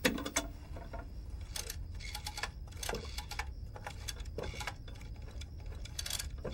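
Rotary-dial telephone being dialled: several runs of quick mechanical clicks as the dial is turned and spins back, with short pauses between digits.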